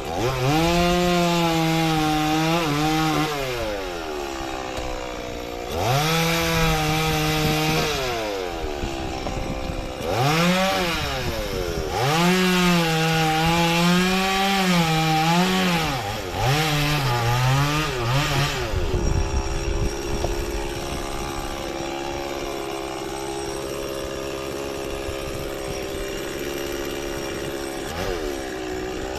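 Stihl chainsaw cutting through a frangipani trunk in repeated bursts of full throttle, dropping back between cuts. The engine note sags under load in the last burst, then the saw idles steadily for the last ten seconds or so.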